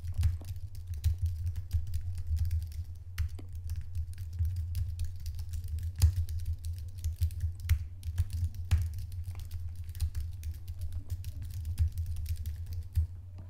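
Typing on a computer keyboard, a fast, irregular clatter of keystrokes picked up by a HyperX SoloCast USB condenser microphone without damping. Each keystroke carries a low thud from vibration travelling through the desk into the microphone.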